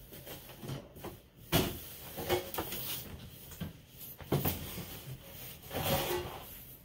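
Knocks, bumps and rustling as a man climbs down and out of a cramped home-built trike through the opening in its floor, with one sharp bang about one and a half seconds in and more bumps and rustles after it.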